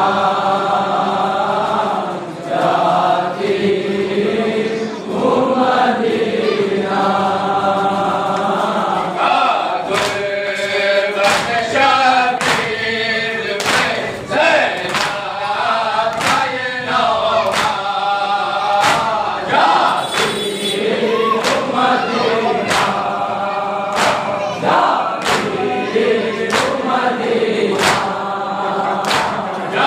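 Men's voices reciting an Urdu noha lament in chorus, led by a reciter. From about ten seconds in, a steady beat of chest-beating (matam) strikes joins the chant, roughly one stroke every three-quarters of a second.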